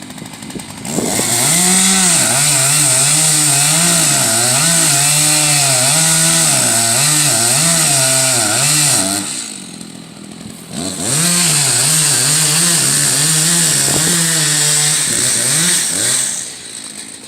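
Two-stroke chainsaw running at full throttle and cutting into a dead pine, its pitch wavering under load. It runs in two long spells, of about eight and five seconds, and eases off for about two seconds between them.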